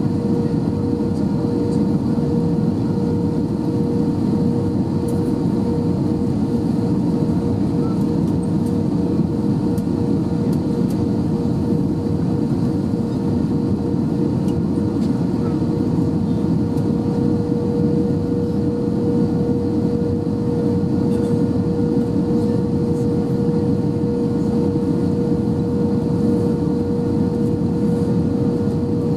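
Steady cabin noise inside an Airbus A320 on approach: engine drone and airflow as a dense low rumble with a constant hum on top, unchanging throughout.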